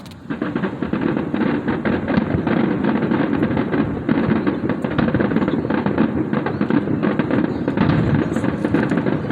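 Fireworks exploding in a dense, continuous barrage of rapid pops and crackles, starting abruptly just after the beginning.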